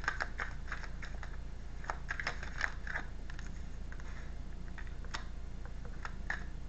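A deck of tarot cards being shuffled by hand: a run of short, irregular clicks and flicks of card against card.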